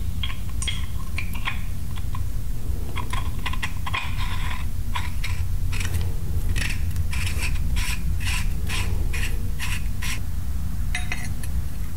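Small metal parts clicking and clinking as the cable-drive adapter is worked into the slot of a new hydraulic gear pump by hand, many light irregular clicks over a steady low hum.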